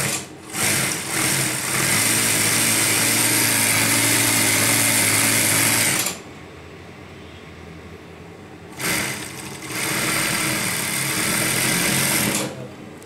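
Industrial flat-bed sewing machine stitching cloth in runs: a couple of short bursts at first, a steady run of about four seconds, a pause of nearly three seconds, then another run of about three and a half seconds.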